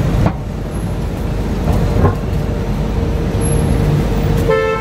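Road traffic: vehicle engines and tyres making a steady low rumble, with a faint steady hum through the middle and a short pitched sound near the end.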